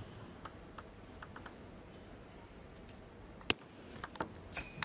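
Celluloid-style table tennis ball clicks: a few light taps in the first second and a half, then a sharp hit about three and a half seconds in as the point starts, followed by quick racket strikes and table bounces of a rally.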